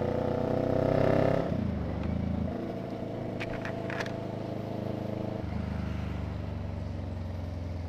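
CFMoto 400NK's 400cc parallel-twin running through an SC-Project slip-on exhaust with no silencer, an open pipe the rider calls very loud. The note is louder for the first second or so, drops about two seconds in, and then holds steady.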